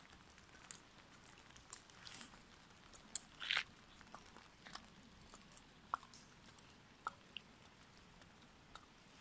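Faint wet outdoor background with scattered, irregular sharp clicks and taps, the loudest a short cluster about three and a half seconds in.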